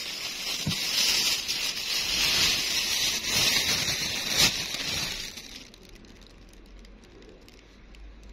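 Hamster screaming: a harsh, breathy hiss held for about five seconds, then dying away.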